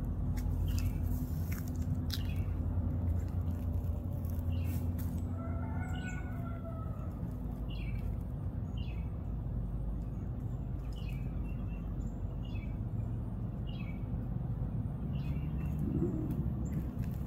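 Wild birds giving short, falling chirps over and over, about one a second, over a steady low rumble. A rooster crows once, about five seconds in.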